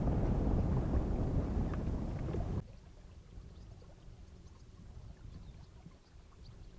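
Steady low noise of a small boat under way on a river. It cuts off abruptly about two and a half seconds in, leaving a much quieter background with faint scattered ticks.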